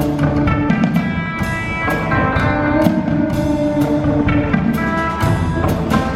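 Live rock band playing: electric guitar melody over bass and a drum kit, with steady drum and cymbal hits.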